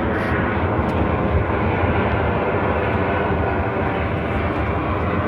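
Airplane engine noise from aircraft flying overhead, loud and steady.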